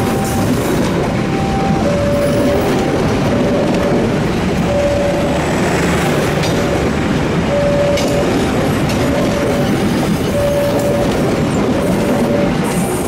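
Passenger train coaches rolling past at close range, wheels clattering steadily over the rails. Over the train noise a level-crossing warning alarm repeats a short two-pitch chime, a higher and a lower tone in turn, the lower one recurring about every second and a half.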